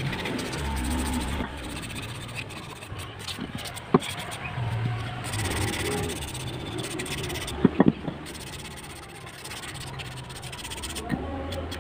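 Sandpaper rubbing back and forth over a wooden slingshot handle by hand, a continuous scratchy scraping. A sharp click about four seconds in and a quick few more near eight seconds stand out above it.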